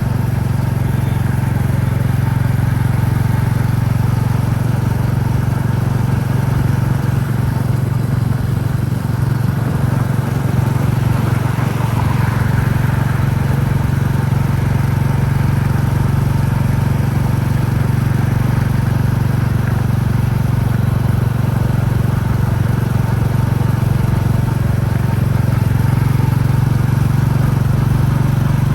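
Royal Enfield Classic 350's single-cylinder engine thumping steadily at a cruise, with wind and road noise on the helmet-mounted microphone.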